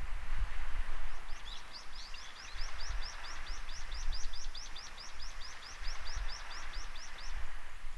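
Small waves washing on a sandy beach, with uneven low buffeting of wind on the microphone. About a second in, a bird starts a fast trill of high, down-slurred notes, about five a second, which stops near the end.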